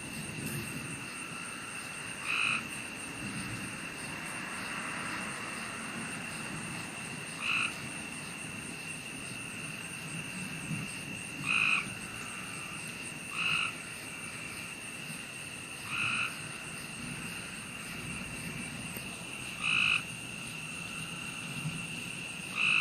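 A frog calling, short croaks repeated every two to five seconds, about seven times, over a steady background hiss.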